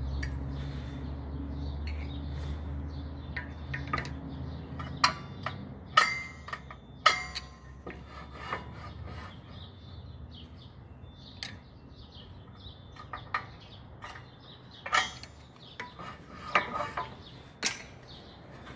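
Sharp metallic clicks and scraping as a Nissan X-Trail's rear drum-in-disc brake rotor is turned by hand and a screwdriver through its adjuster hole sets the handbrake shoes. A low steady hum runs underneath and fades out about halfway.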